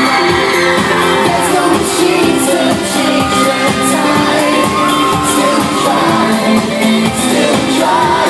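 Live pop concert heard from inside an arena crowd: loud amplified pop music with a steady beat and a male singer, with fans shouting and cheering over it.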